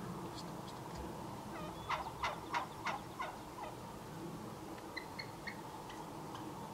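Wild turkey tom gobbling: one fast rattling gobble of five or six notes, each dropping in pitch, about two seconds in.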